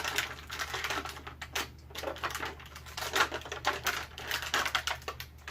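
Plastic action-figure packaging and toy parts being handled: a fast, irregular run of clicks and crinkles as pieces are pulled from a plastic blister tray.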